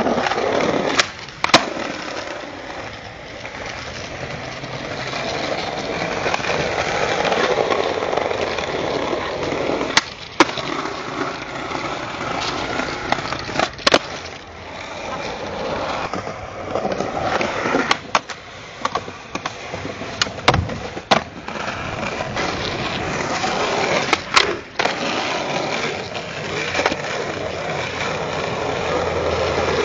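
Skateboard wheels rolling on asphalt and concrete, a steady grinding rumble. It is broken by about a dozen sharp wooden clacks as the board pops and lands.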